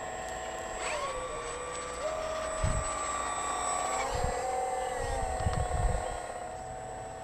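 Hydraulic pump of a Liebherr 946-styled RC model excavator whining steadily, its pitch stepping up and down several times as the boom, arm and bucket are worked. Several low wind buffets hit the microphone in the second half.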